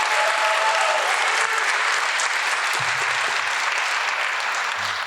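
Audience applauding in an auditorium, with a few short whistles near the start.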